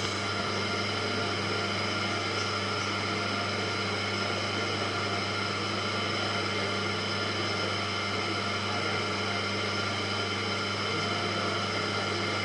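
Electric motor of a potter's wheel running at a steady speed: an even hum with a higher whine above it, unchanging throughout.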